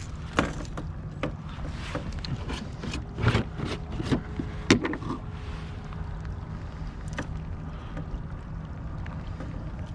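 Tackle being handled on a fishing kayak while a soft-plastic shrimp lure is rigged: scattered clicks and knocks for about the first five seconds, then only a steady low rumble of wind and water.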